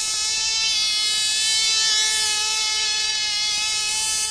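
Tiny model-aeroplane engine running with a steady, high-pitched buzz.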